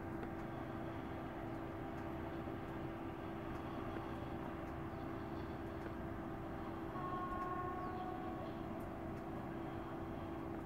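Steady mechanical hum of factory machinery with a constant low drone. About seven seconds in, a brief higher whine of several tones joins for a second or so.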